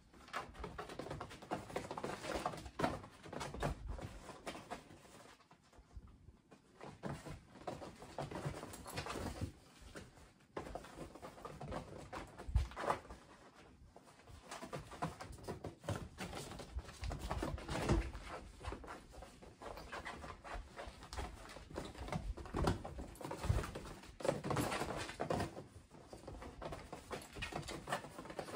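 Kittens scampering, pouncing and tumbling on a padded mat inside a fabric playpen: irregular pattering, scuffling and soft thumps, with a few louder thumps.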